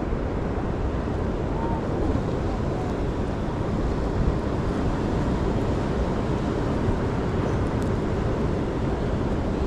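Wind blowing on the microphone over ocean surf at the shore: a steady, even rushing noise that does not let up.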